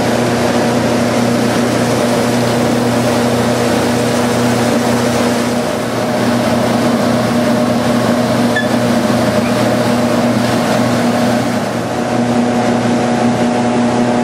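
Seaweed cleaning machinery (shaker table and pneumatic screen) running: a loud, steady mechanical drone with a constant low hum.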